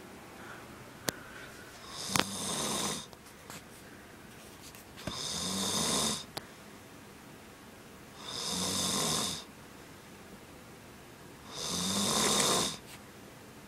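A sleeping man snoring, four long rasping snores at a steady rhythm about every three seconds, with quiet breaths between them. There are a couple of sharp clicks in the first seconds.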